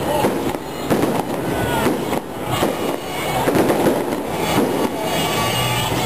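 Aerial fireworks exploding overhead in a rapid, continuous barrage of overlapping bangs and crackles.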